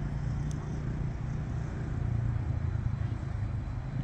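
Wind buffeting the microphone, a steady, unevenly flickering low rumble.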